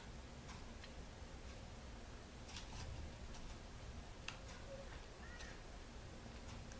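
Faint handling sounds of a glue stick being rubbed onto a small piece of paper: soft rubbing with a few light clicks.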